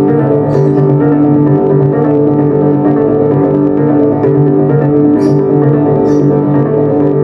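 Music with piano and keyboard played loudly through a Pioneer component stereo and a center speaker.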